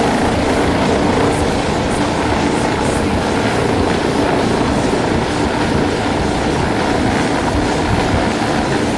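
Helicopter in flight: a steady rotor and engine noise with a fast, even blade chop.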